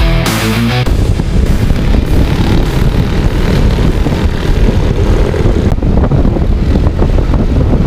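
Wind buffeting the microphone of a motorcycle on the move, with engine and road noise underneath; rock music cuts off about a second in.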